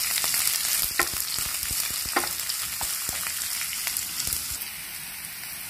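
Sliced onions sizzling in hot oil in a nonstick frying pan, stirred with a wooden spatula that knocks against the pan a few times.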